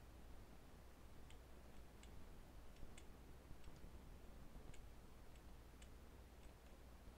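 Faint, irregular clicks of computer keyboard keys being pressed, about a dozen over several seconds, over a low steady hum.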